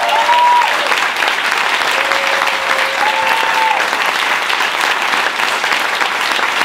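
Audience applauding loudly and steadily in a small room, with a couple of short cheering calls from the crowd, one at the start and another about three seconds in.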